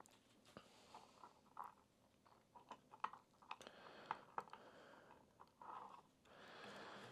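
Faint scattered clicks and taps of hands handling small parts, setting a brass heat-set insert on a 3D-printed block under a heat-set press, with a soft rustle near the end.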